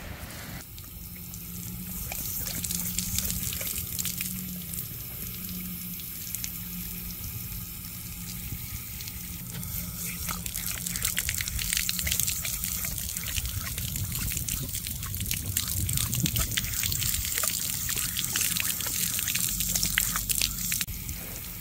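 Water spraying from a garden hose nozzle, splashing as a dog drinks and bites at the stream; the splashing grows busier and louder about halfway through.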